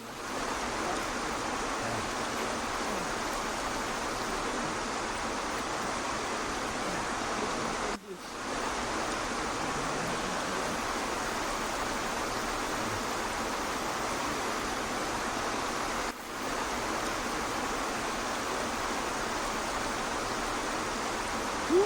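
Steady rush of a waterfall: an even hiss of falling water, dropping away for a moment about 8 and 16 seconds in.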